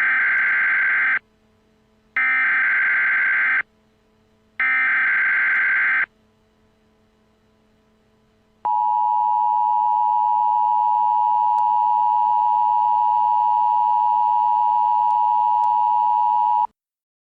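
Emergency Alert System header: three short bursts of screechy digital SAME data code about a second apart. After a pause comes a steady attention tone that lasts about eight seconds and signals that an emergency message follows.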